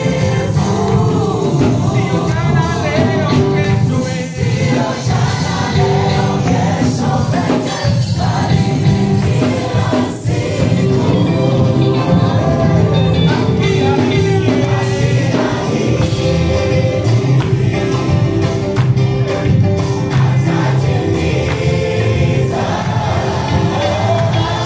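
Live gospel worship music: a singer and backing choir over a band with bass, guitar and a steady beat.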